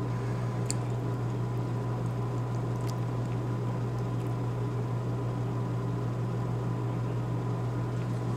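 Steady low electrical hum with a faint, thin steady whine above it, and a few faint clicks about a second in and again about three seconds in.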